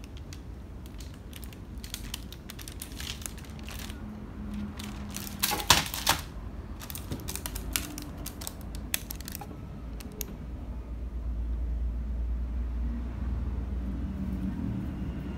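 Plastic-wrapped licence plate holder being handled: the clear plastic packaging crackles in a run of sharp clicks and ticks, loudest about six seconds in. From about eleven seconds a low rumble takes over.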